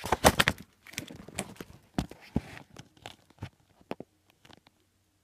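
Handling noise from the recording phone being moved and set in place: a burst of loud knocks and rustles at the start, then scattered clicks and bumps that thin out and stop before the end.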